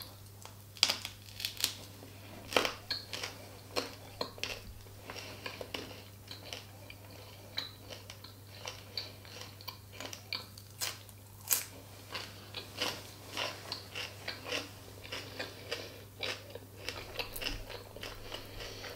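Close-miked eating: chewing and biting with many short, wet mouth clicks, including bites into a crisp cucumber slice. A steady low hum runs underneath.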